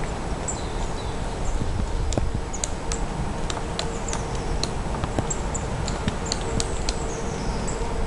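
Black woodpecker pecking and prying at pine bark: irregular sharp taps and knocks as it chips bark away to reach insects. High, thin calls of small birds come and go over a steady low rumble.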